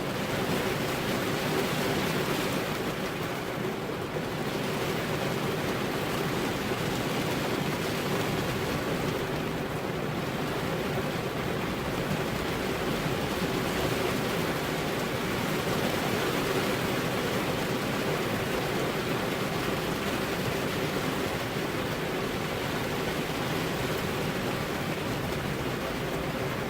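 Steady rain falling on a car's windows, an even hiss and patter with no let-up.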